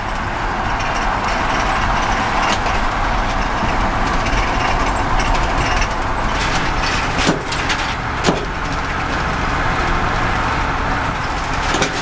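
Steady road and engine noise heard inside the cab of a moving vehicle, with a few brief knocks from the cab.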